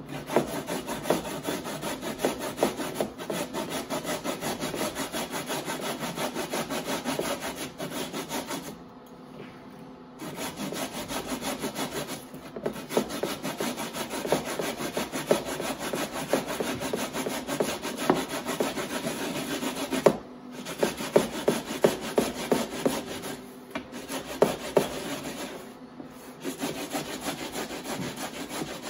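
Raw potatoes being grated by hand on a wire-mesh grater: a rapid rasping scrape, stroke after stroke, with a few brief pauses.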